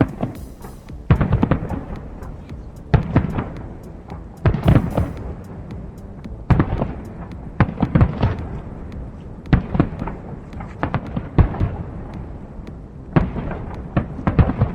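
Aerial fireworks bursting, with loud bangs every one to two seconds, often in quick runs of several.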